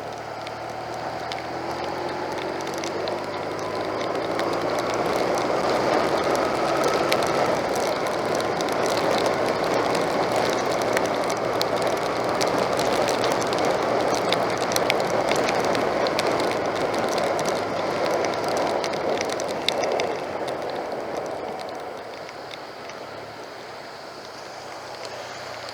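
Motorcycle riding in torrential rain: the engine note rises as it accelerates over the first several seconds, then a steady rush of wind and wet road noise takes over, with rain ticking throughout. The rush eases off near the end.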